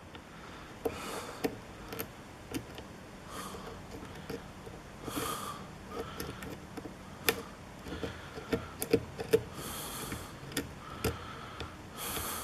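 Faint, irregular small metallic clicks and ticks of a hook pick working the pins of a Tesa (Assa Abloy) lock cylinder under tension. The pins give little feedback.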